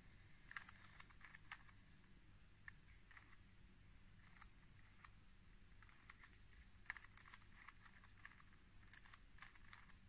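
Faint plastic clicks of a stickerless 3x3 Rubik's cube's layers being turned by hand, coming in short flurries with pauses between.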